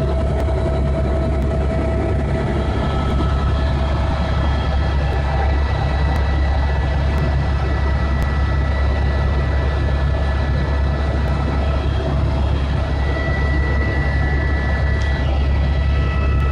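Tour helicopter in flight, heard from inside the cabin: a steady, loud low drone from the rotor and engine, with steady high whining tones from the turbine over it.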